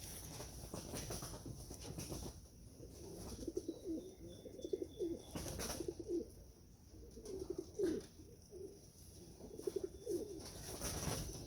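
Domestic racing pigeons cooing, repeated low pulsing coos from several birds.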